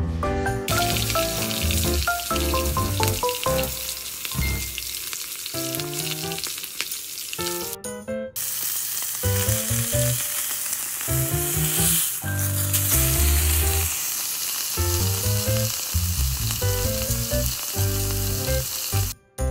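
A hamburger patty sizzling in a cast-iron skillet, over background music with light mallet-like notes. The frying hiss comes in about a second in, cuts out briefly near the middle, then carries on.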